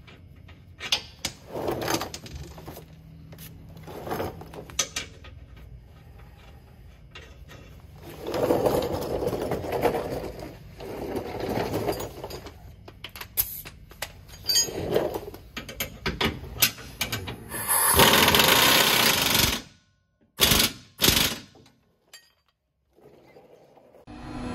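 Hand-tool work on a vehicle's track bar bolt: uneven clicking, ratcheting and clatter of a ratchet and ratchet strap. Near the end comes a louder steady rush of noise lasting about a second and a half, followed by two or three short sharp bursts.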